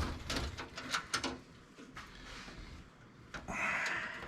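Clicks and knocks from desktop computer case parts being handled, then a scraping slide starting about three and a half seconds in.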